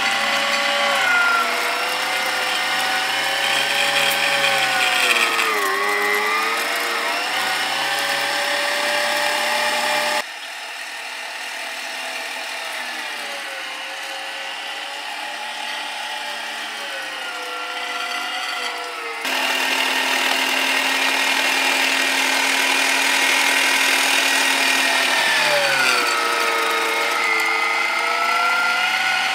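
WEST MG-1650W electric meat grinder running with a steady motor whine, its pitch sagging twice as the motor labours under the beef pressed down the feed tube.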